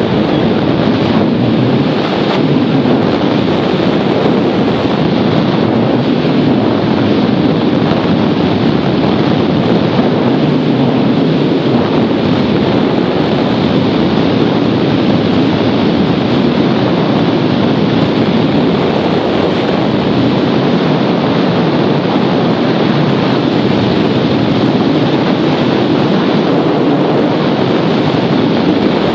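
Steady, loud rushing of wind over the microphone, with no breaks or changes.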